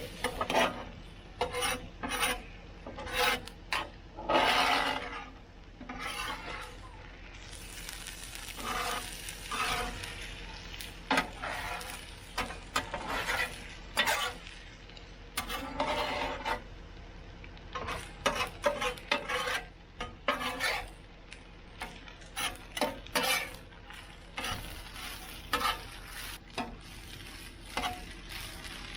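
Metal spatulas scraping and turning food on a Blackstone flat-top griddle in many quick, irregular strokes, as beaten eggs are mixed into frying hash browns and ham, with a faint sizzle underneath.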